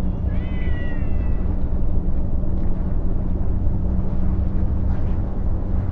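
A cat meows once, a drawn-out call of about a second starting just after the beginning, falling slightly in pitch, over a steady low rumble.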